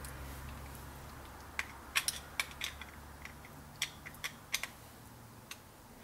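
Small metal parts of a Bramah lock clicking and tapping against each other as the lock is dismantled by hand: about a dozen irregular sharp clicks, starting about a second and a half in.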